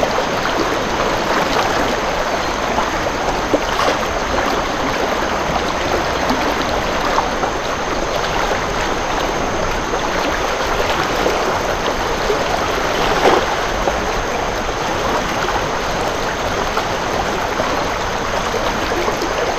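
Flood-swollen river running fast: a steady rushing of muddy water around a person wading waist-deep.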